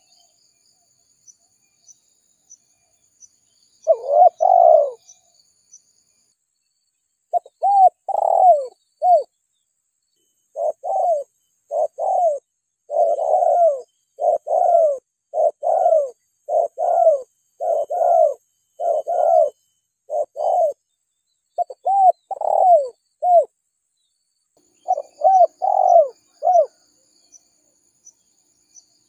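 Spotted dove (tekukur) cooing. After a quiet first few seconds, short arching coos come in repeated phrases, growing dense from about ten seconds in, with a brief pause near the end.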